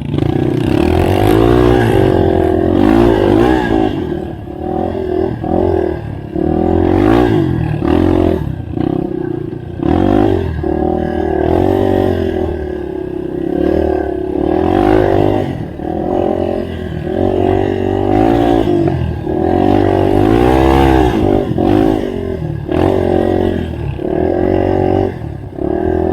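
Yamaha TT-R230 trail bike's single-cylinder four-stroke engine riding off-road, revving up and falling back again and again as the throttle is opened and shut, with short drops in between.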